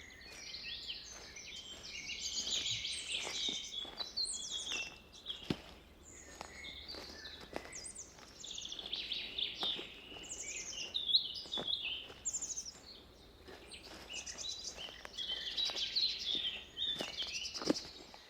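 Several forest songbirds singing at once: overlapping rapid trills and chirps, busiest in two spells. Under them come soft footsteps on a forest path, about one a second.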